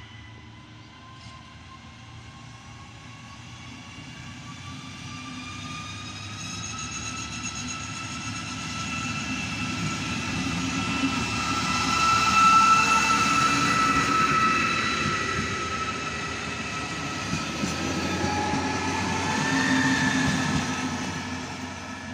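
Diesel-hydraulic railcar pulling away with a passenger train. The engine and transmission give a whine that climbs in pitch as it accelerates, over the rumble of coach wheels. It grows loudest about twelve seconds in as the train passes close. A second, shorter peak of engine whine comes a few seconds before the end as the pushing railcar at the rear goes by, then the sound fades.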